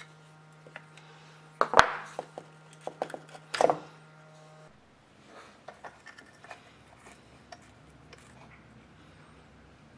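Metal clicks and clatters of a screwdriver and small parts being worked inside the open housing of an old electric drill, with two louder sharp clatters about two and three and a half seconds in, then lighter scattered handling clicks.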